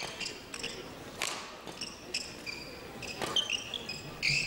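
Badminton doubles rally: sharp racket hits on the shuttlecock every second or two, with players' shoes squeaking on the court between them.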